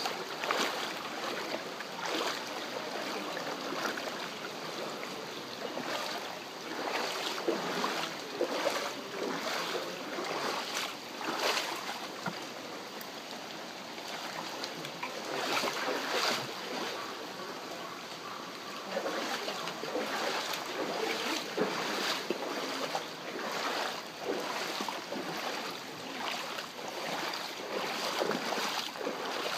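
Muddy floodwater running and sloshing through a flooded street after a cloudburst, with frequent irregular splashes.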